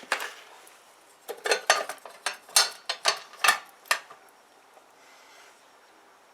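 Fuses being put back into the air conditioner's fuse box: a quick run of sharp metallic clicks and clatter, about ten in two and a half seconds.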